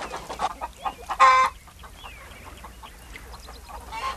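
Domestic chickens clucking in short scattered calls, with one louder, held call about a second in.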